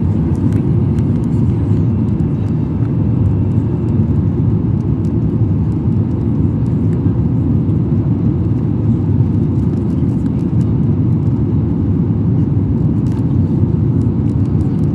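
Airliner cabin noise during takeoff: a steady, loud low rumble of engines and rushing air that stays even throughout.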